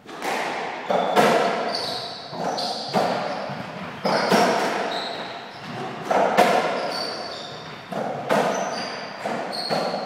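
Softraquet rally: rackets striking the ball and the ball smacking off the court walls and floor, roughly one to three hits a second, each with a long echo in the enclosed court. Short high squeaks sound between the hits.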